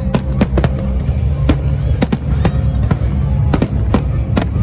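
Fireworks display: a rapid, irregular string of sharp bangs and cracks, about a dozen in a few seconds, over a continuous low rumble.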